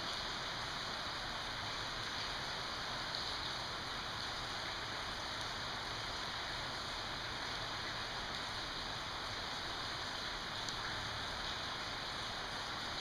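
Steady hiss of rain, with no other sound standing out.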